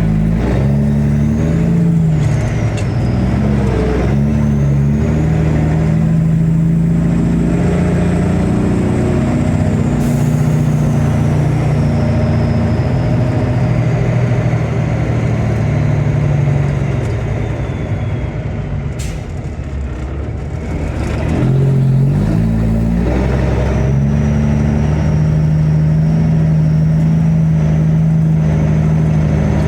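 Truck engine running under load as it pulls onto the grain elevator scale, its pitch stepping up and down with the throttle and gears. It eases off for a few seconds about two-thirds of the way through, then picks up again.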